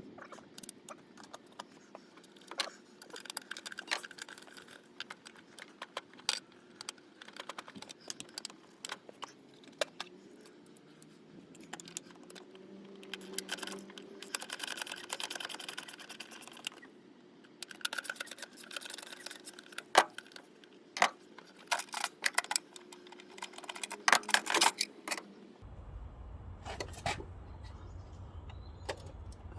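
Hand tools clinking and rattling against the plastic airbox and its fasteners, with irregular sharp clicks and short bursts of rattling, as the airbox is taken apart to reach the air filter. A low steady rumble begins near the end.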